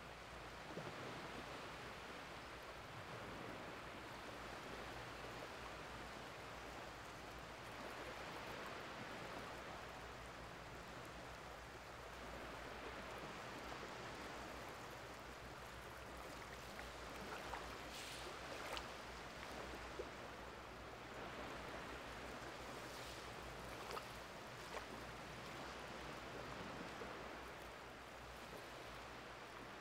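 Small waves of an incoming tide lapping and washing over a flat sandy beach: a faint, steady wash that swells and eases every few seconds, with a few soft sharp ticks in the second half.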